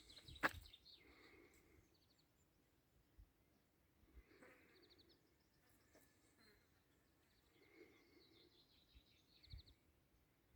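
Faint birdsong: scattered chirps and a few short rapid trills. There are a couple of sharp footsteps just at the start.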